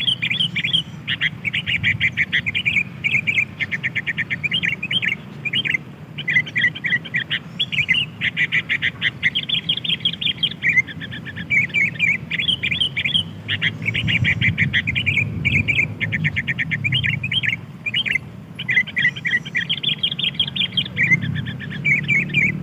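Sooty-headed bulbuls chattering: rapid runs of chirps in dense bursts with brief pauses, over a low steady hum.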